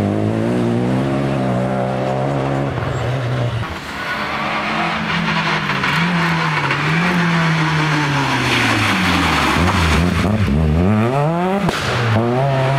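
Rally car engines at full throttle: first a Renault Clio rally car pulling away, then, after about four seconds, a Citroën Saxo rally car's four-cylinder engine climbing toward and past, its revs rising and falling through repeated gear changes. A short sharp crack, like an exhaust pop, comes near the end.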